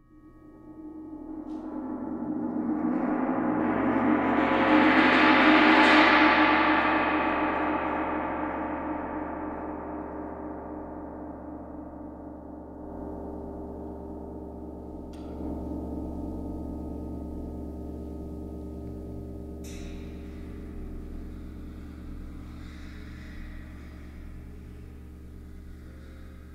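Large gong swelling over about six seconds to a loud peak, then left to ring and slowly die away as a cluster of steady humming tones. A faint click comes about twenty seconds in.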